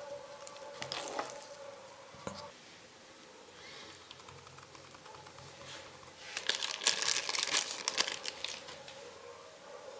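Hands handling food and crinkling thin plastic, with a louder burst of crinkling lasting about a second and a half from six and a half seconds in. A faint steady hum runs underneath.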